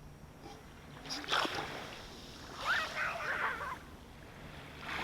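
Close-up ocean waves washing onto the shore, with a short surge about a second in and a longer, bubbling wash of water around three seconds in.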